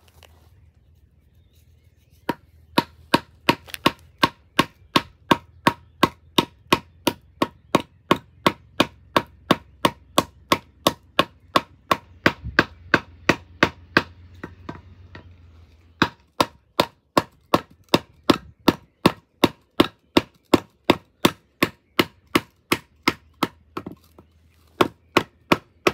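Batoning a Spyderco HIC ceramic knife blade into wood: sharp, evenly spaced knocks, about three a second, as the spine is struck again and again, in three runs with two brief pauses. The blade is very difficult to drive through the wood.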